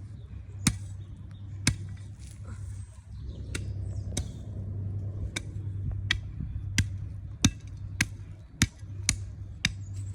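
A shovel striking and packing down the dirt of a bike jump: about a dozen sharp strikes, coming closer together in the second half.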